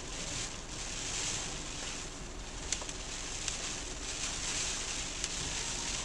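Heavy rain and wind beating on a parked car, heard from inside the cabin: a steady hiss that swells and eases, with a few sharp ticks of drops striking the glass.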